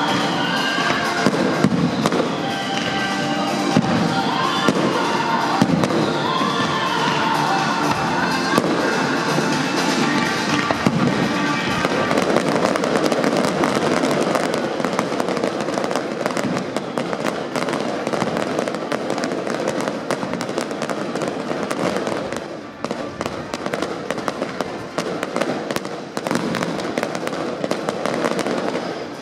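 Fireworks display: shells and ground fountains going off in a steady barrage of bangs and dense crackle, with music playing alongside. The music stands out more in the first dozen seconds, after which the crackle takes over, easing a little near the end.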